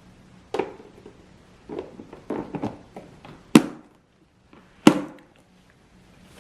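Kitchen utensils knocking and clacking during kimchi preparation: about eight irregular knocks, two of them sharp and loud near the middle and about two thirds in.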